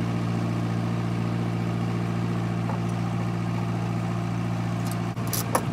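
Backhoe's diesel engine idling steadily. A few sharp clicks come near the end.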